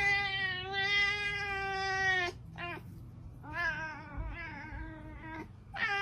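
A domestic cat yowling in long, drawn-out meows: one held until about two seconds in, a short one just after, a longer wavering one, and another starting near the end.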